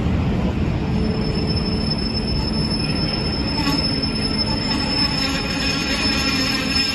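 Model train running on the layout track: a steady rumble of wheels and motor, with a thin high whine that starts about a second in.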